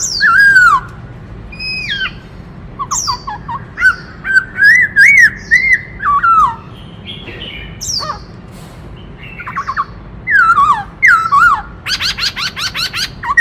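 Black-throated laughingthrush singing a varied song of loud whistled phrases, many sliding down in pitch, with a fast run of rapidly repeated notes near the end.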